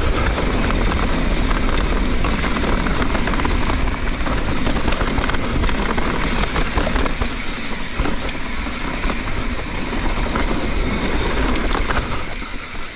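Wind buffeting an action camera's microphone on a fast mountain bike descent, mixed with tyre noise on dirt and short rattling knocks from the bike over rough ground. The noise drops about a second before the end.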